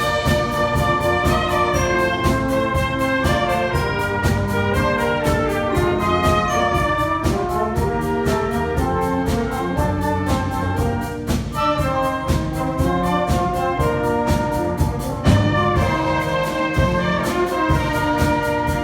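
School wind band playing a pop arrangement in full, trumpets and trombones carrying the melody over a steady drum beat.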